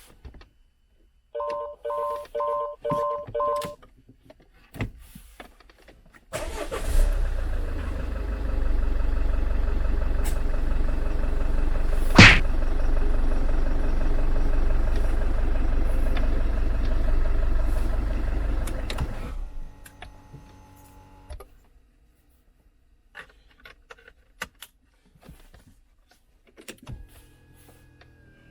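Five short electronic beeps, then the Citroën C5's 2.2 HDi four-cylinder diesel starts and runs steadily for about thirteen seconds before it is switched off, with one sharp click midway.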